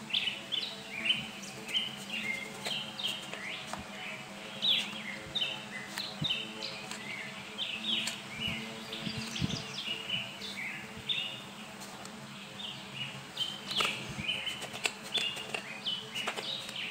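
Birds chirping in quick, irregular short notes, over light scrapes and taps of a small trowel digging in damp sand. A low steady hum sits underneath.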